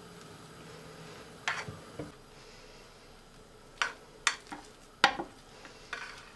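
A metal offset spatula spreading whipped cream over a cake in a glass baking dish, the blade clicking and tapping against the glass about six times.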